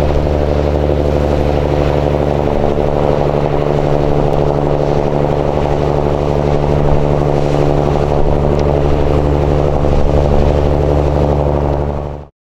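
Fishing boat engine running steadily: a low, even drone that stops suddenly near the end.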